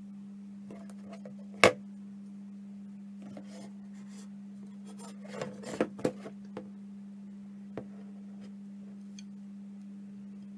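Scattered handling noises over a steady low hum: one sharp click a second and a half in, then a short cluster of rubbing and clicks about halfway through, and a faint tick after it.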